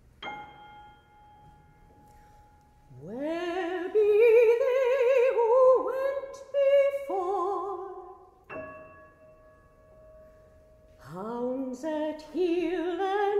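A single piano note is struck and left to ring. Then a female classical singer enters with an upward slide into a phrase sung with wide vibrato. A second piano note sounds about two-thirds of the way through, and she starts the next phrase near the end.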